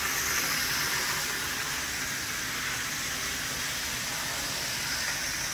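Bachmann HO-scale model train running fast around a loop of track with the power turned up: a steady, even whirr of the locomotive's motor and its wheels on the rails.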